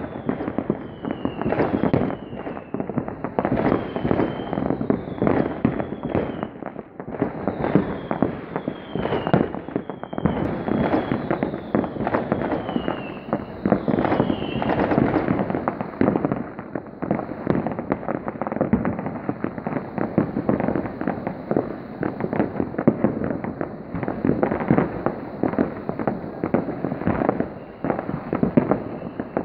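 New Year's Eve fireworks and firecrackers going off all over a town: a dense, unbroken barrage of bangs and crackles. Through the first half, a short, high falling whistle repeats about once a second.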